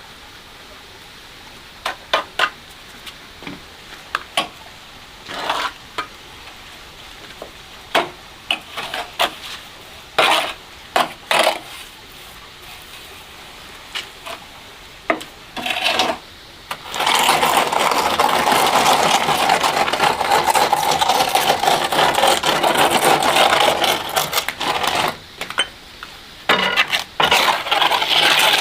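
Scattered short taps and clicks, then about seven seconds of steady gritty scraping, breaking into shorter scrapes near the end: a hand tool worked against a hard surface.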